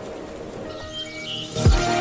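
Background music: a quiet sustained passage with a few short high chirps, then a heavy beat with deep bass drum kicks comes in about one and a half seconds in.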